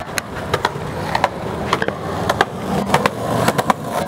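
Skateboard wheels rolling over rough concrete: a steady rumble with irregular sharp clicks as they cross cracks and grit.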